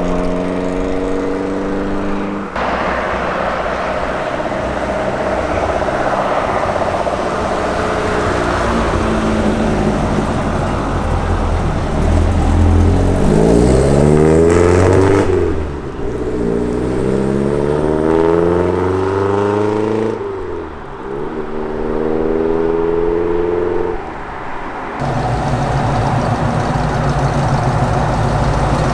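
Classic Ford cars driving off one after another. A Mk1 Ford Cortina's engine revs up through the gears in three rising pulls, each cut off by a gear change. Near the end a Ford Mustang Mach 1's V8 rumbles at low speed.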